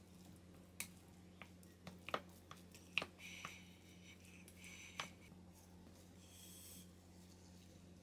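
Scattered light clicks and taps of kitchen handling, the sharpest about three seconds in, with a few brief rustles, over a low steady hum.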